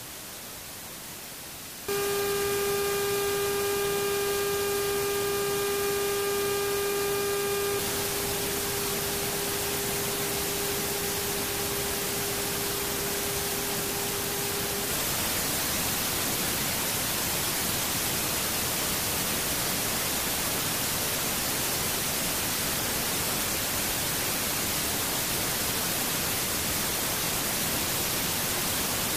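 Steady hissing cabin noise inside an E-3 Sentry airborne command aircraft in flight. A steady hum at one pitch, with its overtones, comes in about two seconds in, weakens after a few seconds and stops about halfway. The noise grows louder about two seconds in and again about halfway.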